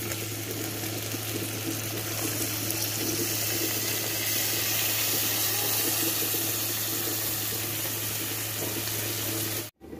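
Chopped tomatoes tipped into hot oil in a frying pan, sizzling with a steady loud hiss that cuts off suddenly near the end.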